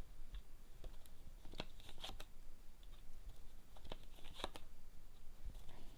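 Lenormand cards being handled: a series of soft, irregular clicks and rustles as the cards are drawn and laid down.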